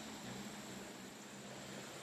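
Faint steady hiss of outdoor background noise, with a low hum underneath.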